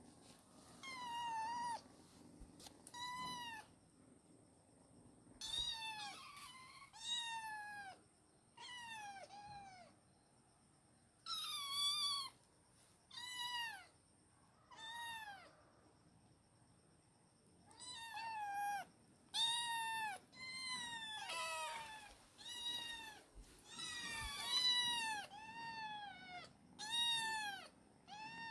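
A kitten meowing over and over in short, high-pitched calls, each rising and then falling in pitch. The calls come in little runs with pauses and grow more frequent in the second half.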